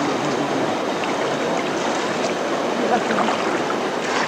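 Steady rush of flowing stream water over rocks, an even sound with no change in strength.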